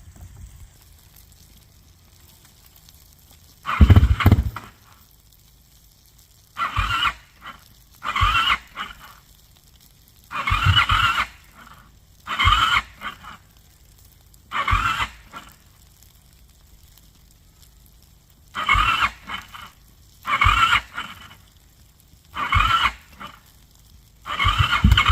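Kawasaki KFX quad's electric starter cranking in about ten short bursts, each roughly a second long. The first attempt, about four seconds in, is the loudest, and the engine turns over without catching: it will not run and idle despite a new battery and a rebuilt top end.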